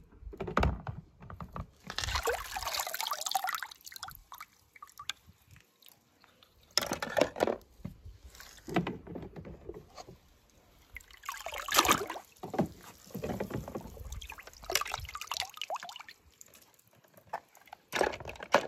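Water sloshing and splashing in a shallow plastic tub as a hand moves through it and lifts out toy cars, in irregular bursts with short pauses between.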